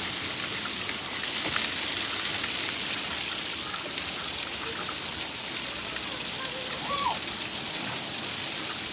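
Steady hiss of falling water, splashing on a surface, with a short faint tone that rises and falls about seven seconds in.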